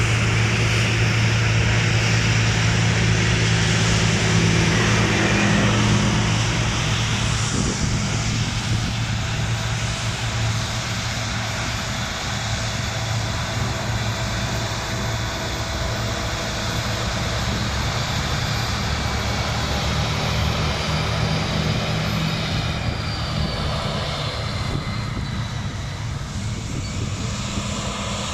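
Heavy diesel harvest machinery running with a steady, deep engine drone. It is loudest for about the first six seconds, then eases off a little.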